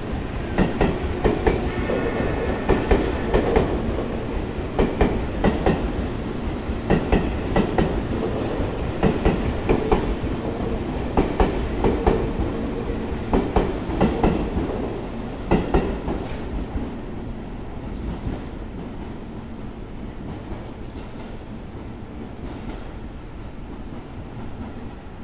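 Seibu 20000-series electric train pulling out of the station, its wheels clacking over a rail joint in pairs about every two seconds over a steady rumble. The clacks stop about 16 seconds in, once the last car is past, and the running sound then fades away.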